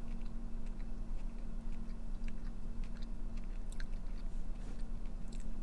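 A person chewing a mouthful of dense fried churro donut with the mouth closed: soft mouth sounds with small, faint crackles, over a steady low hum.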